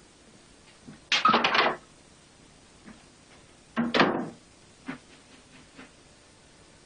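A door and footsteps on a wooden floor as a man walks out of a room. There is a loud clatter of knocks about a second in and another just before four seconds, then a few lighter footfalls.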